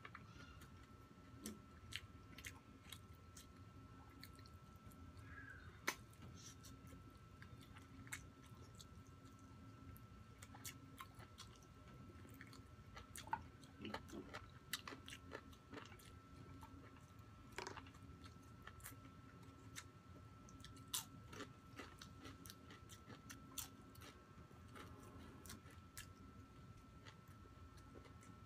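Quiet close-miked chewing of crispy fried chicken skin, with many scattered sharp crunches and mouth clicks.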